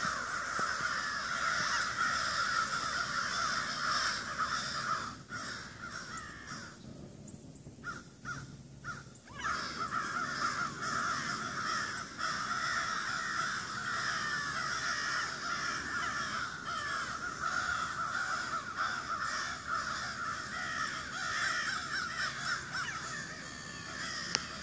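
A large flock of crows cawing constantly, many calls overlapping into a loud, unbroken racket. It eases off for a couple of seconds about a third of the way in, then picks up again.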